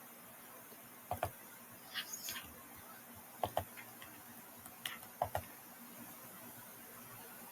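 Several sharp clicks, mostly in quick pairs about two seconds apart, with a brief higher sound about two seconds in, over a faint steady hiss.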